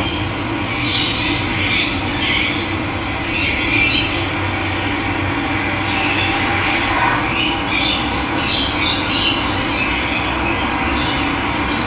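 Steady rush of running water with birds chirping and calling over it at scattered moments.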